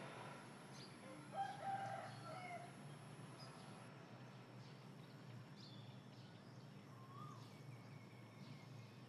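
Faint morning ambience: a rooster crows once, about a second and a half in, with faint bird chirps scattered afterwards.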